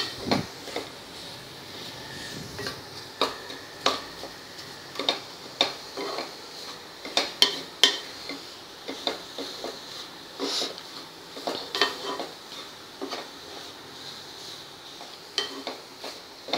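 Wooden spatula stirring and scraping grated coconut and jaggery in a black nonstick pan, with irregular knocks of the spatula against the pan, one to three a second, over a faint steady hiss. The jaggery is melting into the coconut as the sweet modak filling is cooked.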